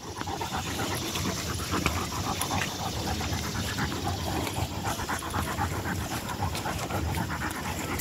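A Rottweiler panting, a steady run of quick, even breaths close to the microphone.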